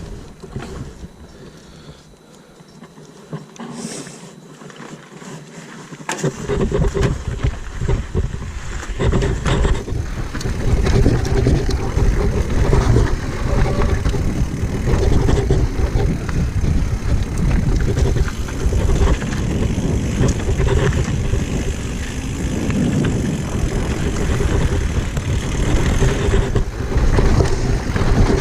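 Wind rushing over the microphone and the rumble of a mountain bike riding down a rough trail, starting loudly about six seconds in after a quieter stretch.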